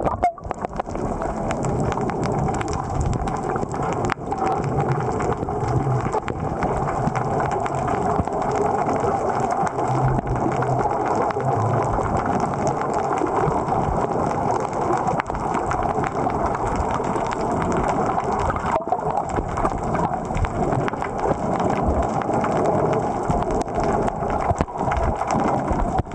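Muffled underwater noise picked up by a camera in a waterproof housing: a steady crackling rush of water with no clear single event.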